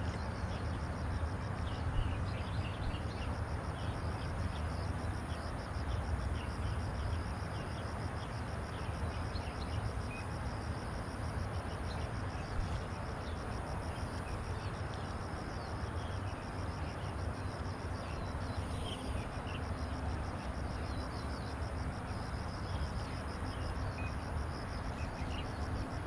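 Outdoor ambience of insects buzzing in a steady high pulsing trill, with scattered short bird chirps over a steady low rumble.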